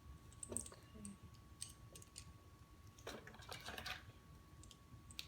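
Faint light clicks and handling noises from small plastic Kinder Surprise toy pieces, with a brief burst of rustling and clicking about three seconds in.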